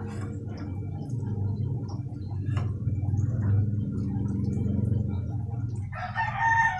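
Tofu frying in a wok of hot oil, a steady low bubbling. About six seconds in, a rooster starts crowing loudly.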